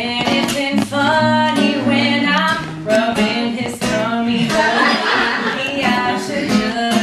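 A woman singing a melody over a strummed acoustic guitar, in a live acoustic duo performance.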